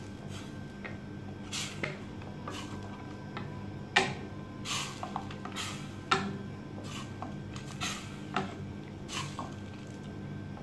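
Wooden spatula stirring thick tomato sauce in a stainless steel pot, mixing in tomato paste: repeated scraping, stirring strokes about once a second, with two sharper knocks against the pot about 4 and 6 seconds in, over a steady low hum.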